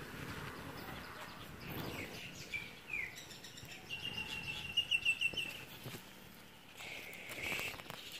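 Bird chirping: a few high notes, then a quick run of about eight repeated high chirps in the middle and another short call near the end, over faint outdoor background noise.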